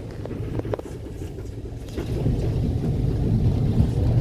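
E2 Class tram running, heard from inside the cabin: a steady low rumble of its wheels and running gear on the rails, with a few light clicks about half a second in, growing louder after about two seconds.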